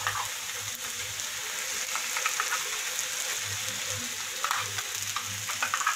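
Chopped onions and curry leaves frying in oil in a non-stick pan, with a lump of ground masala paste just added: a steady sizzling hiss with scattered small crackles.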